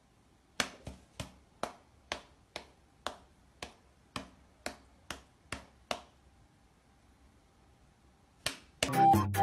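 About a dozen sharp claps or slaps, evenly spaced at about two a second, that stop after some six seconds; two more come near the end, and music begins just before it ends.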